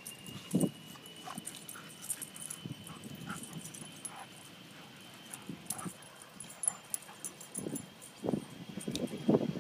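Dogs, an Airedale and a young Rottweiler mix, making short whimpering sounds, scattered at first and coming thicker near the end. A faint steady high whine runs underneath.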